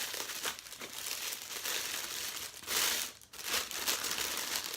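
Packaging crinkling and rustling in irregular bursts as a camera lens is unwrapped, loudest a little under three seconds in.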